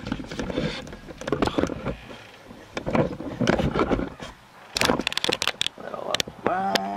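Scattered clicks, knocks and scrapes of gloved hands working a flexible brake hose and its metal end fitting into the frame bracket above a disc brake caliper, with a quick run of sharp clicks about five seconds in.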